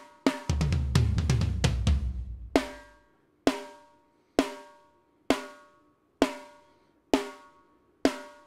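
Raw, unprocessed multitrack drum recording with only the tom and snare tracks playing: a fast rolling tom fill, then single snare hits about once a second, each ringing briefly.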